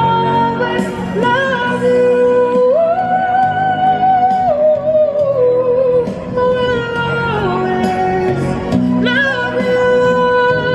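A street performer singing a slow song in long, held notes that waver and step up and down, over a steady chordal accompaniment.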